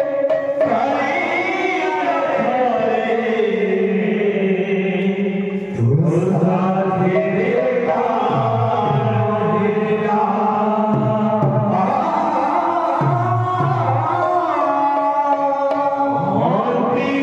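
Odia devotional kirtan: male voices sing a chanted song together, backed by two-headed barrel drums with gliding bass strokes and hand cymbals. The singing drops off briefly about five and a half seconds in, then the next phrase comes in with a strong drum stroke.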